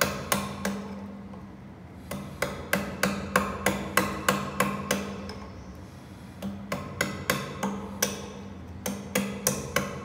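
Gouge chisel paring the protruding end of a stool leg's tenon flush with the wooden seat in short, quick strokes, each cut a sharp click at about three to four a second. The clicks come in three runs, with brief pauses about a second in and near the middle.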